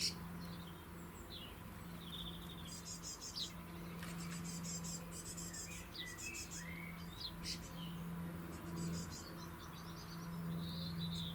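Small birds chirping and twittering at the feeders: many short high calls and buzzy trilled phrases, coming irregularly throughout, over a steady low hum.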